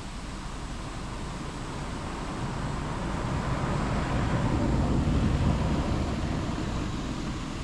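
A vehicle passing on the road: a rushing noise that swells to a peak about five seconds in, then fades away.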